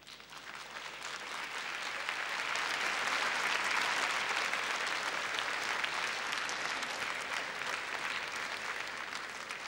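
Large arena audience applauding: the clapping starts suddenly, swells over the first few seconds, then slowly dies away.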